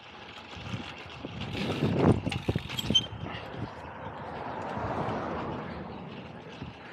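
Bicycle rattling and knocking as it rides over rough pavement, with a burst of clattering and a few metallic clinks about two seconds in. Afterwards a smooth rushing noise swells and fades, peaking around five seconds.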